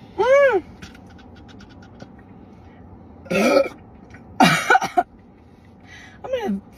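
A woman belching four times from chugging a carbonated soda: a short high-pitched burp, then two louder, rougher ones in the middle, and a short one near the end. A quick run of small clicks follows the first burp.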